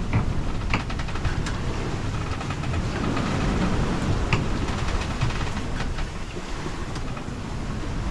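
Steady rushing of wind and water around a sailboat under way, with a few sharp knocks or clicks aboard.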